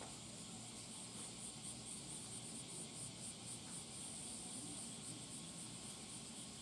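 Faint high-pitched insect chirping, pulsing about four times a second over a steady hiss.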